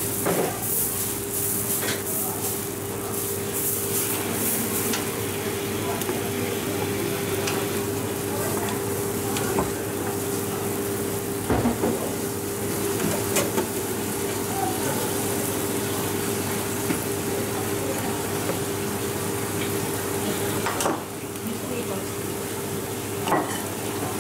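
Dosa batter sizzling steadily on a hot flat griddle as it cooks, with a few short knocks and scrapes of the cook's utensils. A steady hum runs underneath.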